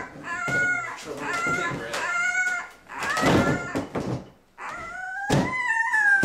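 Seventeen-day-old Labrador puppies whining and crying in a string of high-pitched, wavering calls, with rustling of bedding between them.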